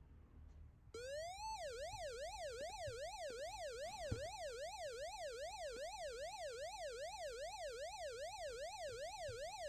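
An alarm clock's electronic siren tone comes on about a second in with a short rising glide, then wails up and down about twice a second without a break.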